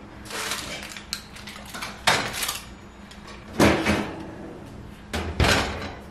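A heavy cast iron bread pan is pulled from the oven and set down on an electric stovetop. There is rustling and scraping, then three sharp clunks about two, three and a half and five seconds in.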